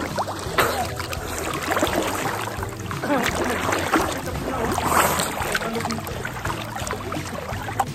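Water splashing and sloshing close to the microphone as a swimmer moves through it, with irregular surges, the loudest about three and five seconds in.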